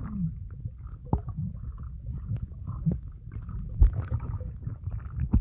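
Muffled underwater sound of a swimming pool, heard through a submerged camera: a low, rumbling churn of moving water with several dull knocks as a Dalmatian puppy paddles close by, the loudest a little before four seconds in.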